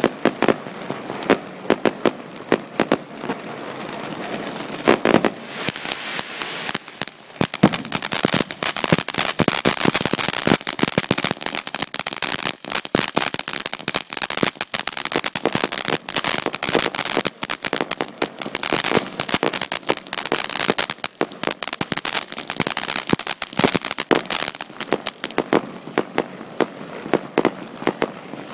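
200-gram consumer firework fountain burning: a continuous hissing spray dense with sharp crackles and pops. It dips briefly about seven seconds in, then comes back fuller and louder.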